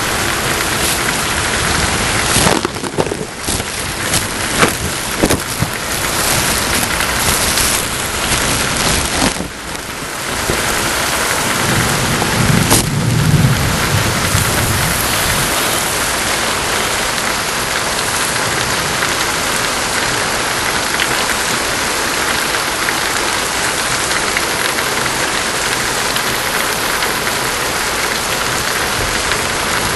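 Heavy rain pouring steadily, with a low rumble of thunder swelling and fading about twelve to fourteen seconds in. A few sharp cracks come in the first five seconds.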